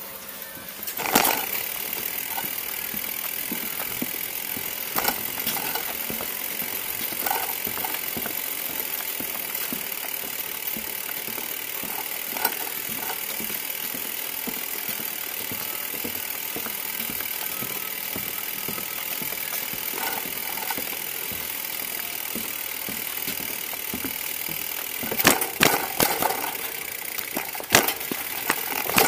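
Bicycle rolling along a street, with a steady rolling and rattling noise. Sharp knocks come as it goes over bumps: a loud one about a second in, a few scattered ones, and a cluster of several near the end.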